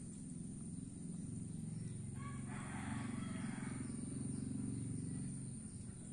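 Pangasius catfish splashing at the pond surface as they rise to take floating leaves, with a short burst of splashing about two to three seconds in, over a steady low hum.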